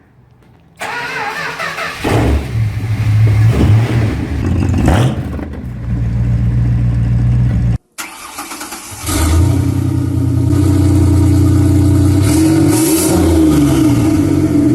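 A car engine is started, with the starter turning for about a second before the engine catches and runs. After a sudden cut near the middle, a second car engine and exhaust run steadily with a few light revs.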